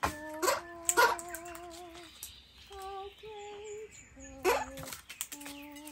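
A woman humming a slow tune in long held notes, with short, sharp, loud calls from male Australian king parrots cutting across it three times.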